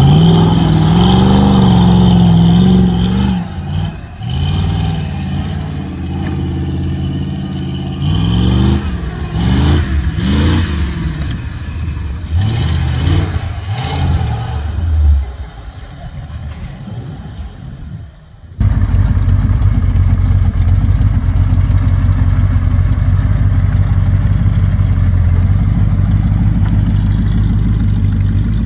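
Off-road buggy engines revving up and down hard as the buggies climb through sand and rock. About two-thirds of the way in, the sound cuts to a buggy engine running at a steady speed in the sand.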